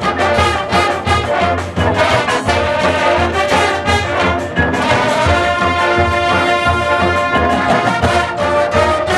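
Drum and bugle corps playing live: a brass line over battery drums and front-ensemble mallet percussion. Rapid percussion hits drive the first half, and about five seconds in the brass settles into a long held chord.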